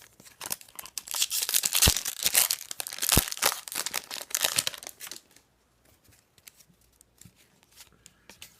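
Foil trading-card pack wrapper being torn open and crinkled for about five seconds, then a few faint ticks of card handling.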